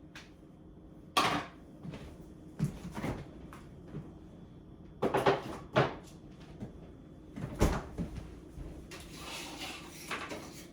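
Kitchen knocks and clunks as a refrigerator door is opened and shut and a bowl is put inside: several separate sharp knocks a second or two apart, then a brief rustle near the end.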